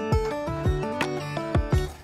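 Background music: a melodic tune over a steady drum beat.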